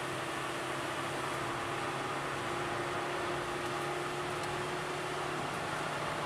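Suzuki Swift Sport's four-cylinder engine running hard at a steady pitch, heard from inside the cabin under a constant rush of tyre and wind noise.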